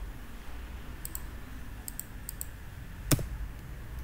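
Computer keyboard and mouse clicks: a few light key taps, then one sharp, louder click about three seconds in.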